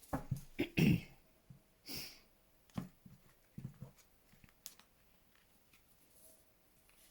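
Tarot cards being shuffled and handled by hand: a cluster of soft taps and clicks with a brief card slide in the first few seconds, then fainter handling.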